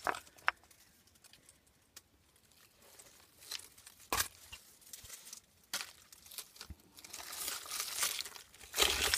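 A hand rummaging through dry leaves, grass stems and stones in damp soil: scattered crackles and a few sharp knocks, with the rustling growing denser and louder near the end.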